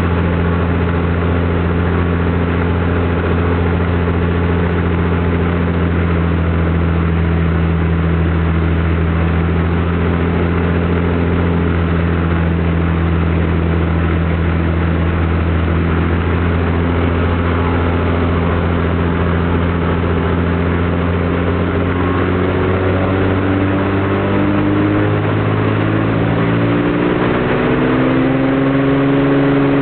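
Cessna 210's six-cylinder piston engine running steadily during a ground run-up, then from about three-quarters of the way through its pitch climbs in steps as the engine speeds up.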